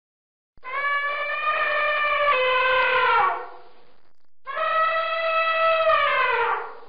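Elephant trumpeting: two long brassy calls, each held steady and then falling in pitch at the end, about a second apart.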